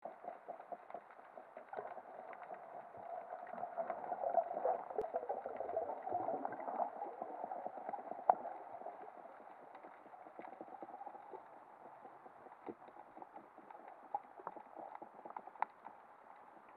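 Underwater ambience picked up by a camera on a speargun: a steady watery hiss with scattered sharp clicks and crackles, fuller for a few seconds early on and thinning afterwards.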